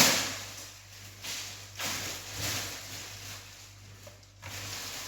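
Hands working a bowl of warm yeast dough: soft, intermittent rustling and handling noises, a few swishes one to two seconds apart, over a faint steady low hum.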